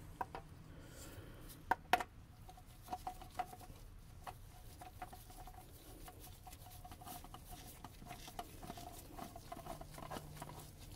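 Quiet scattered taps and clicks of gloved hands working at the oil filter housing under a car, with two sharper clicks about two seconds in.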